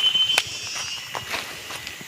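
Footsteps through forest undergrowth, with irregular sharp cracks of twigs and leaves underfoot. A high, steady insect buzz runs in the background and breaks off shortly after the start.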